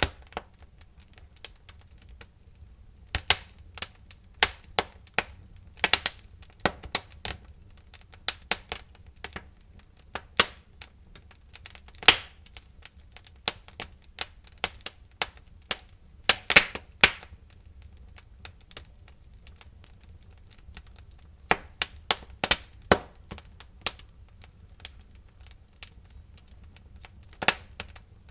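Wood fire crackling in a fireplace: irregular sharp pops and snaps, some louder than others, over a faint low rumble.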